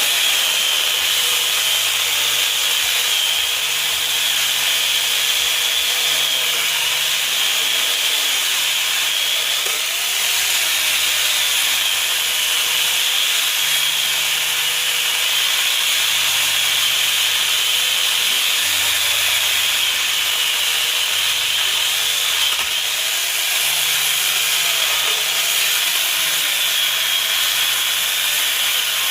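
Electric angle grinder fitted with a mini chainsaw attachment, running continuously and cutting wood. Its high whine wavers slightly as the chain bites and eases.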